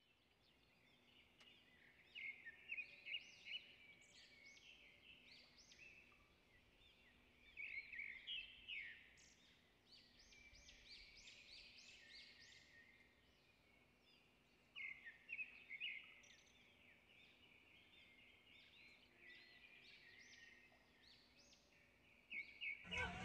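Faint bird chirping: groups of quick, high calls come and go every few seconds, over a faint steady low hum.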